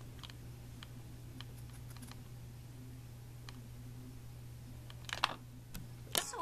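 Faint, scattered clicks of computer keys, a few seconds apart with a short cluster about five seconds in, over a steady low hum.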